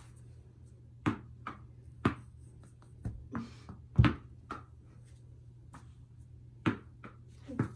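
Tennis balls being caught in a bare hand during a batting catch drill: about ten sharp smacks and thuds, some in pairs about half a second apart, the loudest about four seconds in.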